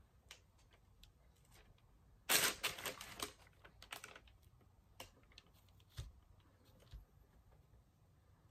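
Small clicks and taps of fingers handling a gingerbread house, knocking and pressing on its hard gingerbread roof panels. A quick run of crackling taps comes a little over two seconds in, then single clicks about once a second.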